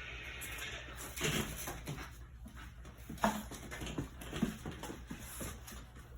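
Four-week-old puppies playing together: short whimpers and small yelps among scuffling and light knocks.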